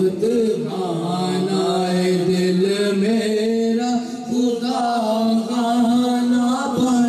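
Unaccompanied male voice chanting an Urdu naat, drawing the melody out in long held notes that bend slowly up and down.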